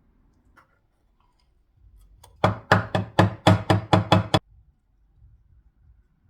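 A quick run of about ten sharp knocks, roughly five a second, lasting about two seconds and then stopping.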